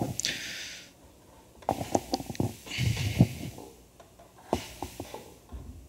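Breaths hissing into a close lectern microphone, twice, with scattered small knocks and clicks of handling between them.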